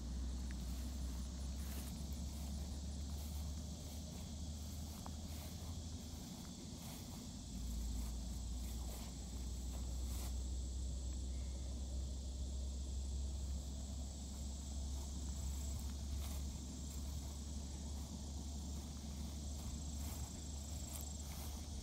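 Footsteps through grass, with a steady high buzz of insects behind. A low rumble on the microphone is the loudest sound and grows stronger about seven seconds in.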